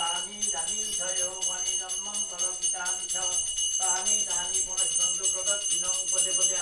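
A brass puja hand bell ringing steadily throughout, under a voice chanting in a regular rhythm.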